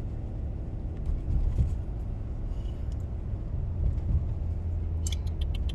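Road rumble of a moving car heard from inside the cabin, a steady low drone. A few short clicks come about five seconds in.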